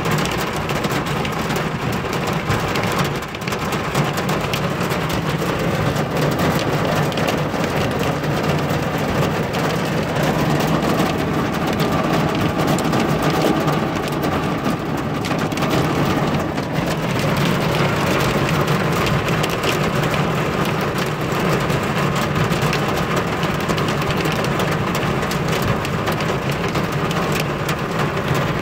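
Hail and heavy rain pelting a vehicle's roof and windshield, heard from inside the cab: a dense, steady clatter of countless small impacts.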